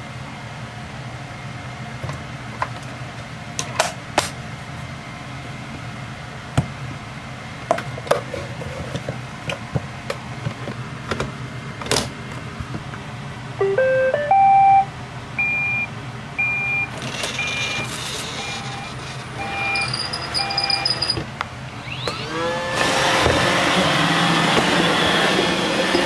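Clicks and rattles of a Roomba 870 robot vacuum's plastic dust bin and filter being handled. About halfway through the robot plays a short rising chime, then short beeps about once a second. Near the end its vacuum motor and brushes spin up with a rising whine and keep running loudly.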